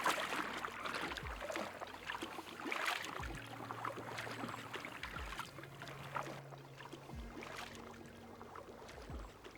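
Water splashing with kayak paddle strokes, fading toward the end, over soft background music with held bass notes and a low beat about every two seconds.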